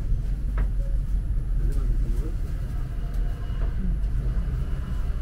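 Road traffic: cars and vans driving past, with a steady low rumble.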